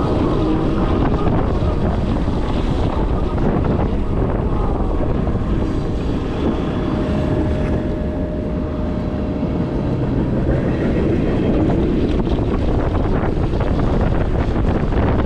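Steady, loud rumbling noise with a few faint held tones over it.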